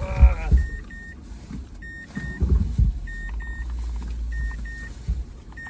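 A car's electronic warning chime sounds over and over in high double beeps above a steady low rumble in the cabin. A few dull knocks are loudest, near the start and about two and a half seconds in.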